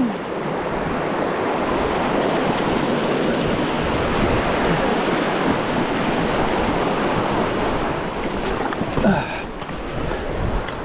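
River water rushing steadily, an even hiss with no breaks.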